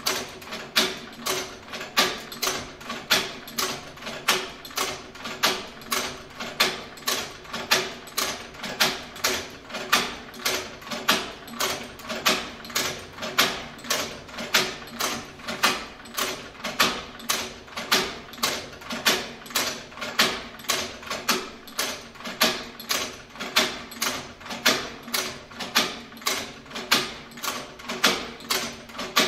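Manual leather sewing machine clacking in a steady rhythm of about two strokes a second, one click of the hand-lever mechanism for each stitch as it sews leather.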